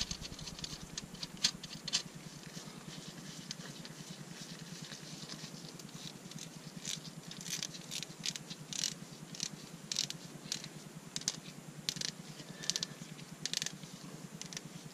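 Nitrile-gloved hands screwing a locking nut onto a threaded rod against a washer and felt polishing disc: irregular light clicks and rustles, coming thicker in the second half.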